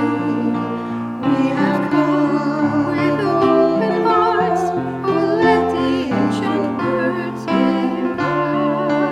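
Slow sacred music: a voice singing long, wavering notes with vibrato over sustained piano chords.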